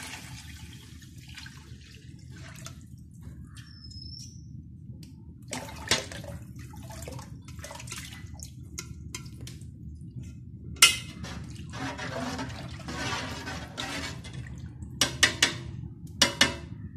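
Coconut milk and water poured in several batches from a jug and a steel vessel into a large aluminium cooking pot of masala, splashing into the liquid. A few sharp metallic clinks of the steel ladle against the pot, several of them near the end, over a steady low hum.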